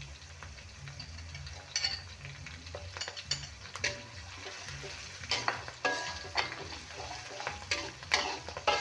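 Sliced green chilies, garlic and shallots sizzling in hot oil in a wok while a metal spatula stirs them, scraping and clinking against the pan. The scrapes come more often from about five seconds in.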